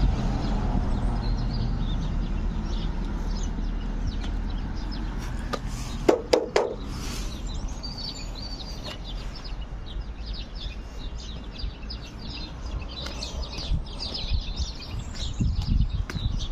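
Wind buffeting the microphone, heavy at first and easing off, with birds chirping, thickest in the last few seconds. About six seconds in there are a few short sharp calls.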